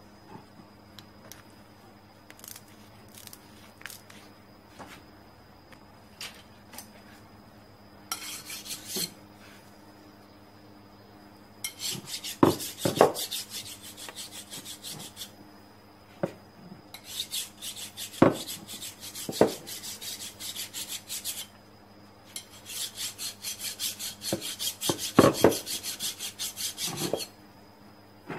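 Scratchy rasping in several stretches of a few seconds each, as fiberglass packing cloth is worked around a glasspack muffler's metal inner pipe, with a few sharp knocks of the pipe on the bench.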